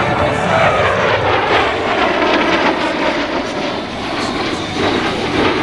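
Twin General Electric F404 jet engines of a CF-18 Hornet fighter, a loud rushing jet noise with a tone that falls in pitch over the first couple of seconds.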